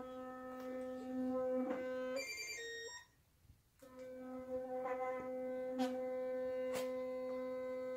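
Sonicare electric toothbrush buzzing steadily with its head held in a person's mouth. About two seconds in, the buzz changes pitch briefly, cuts out for about a second, then starts again and runs on.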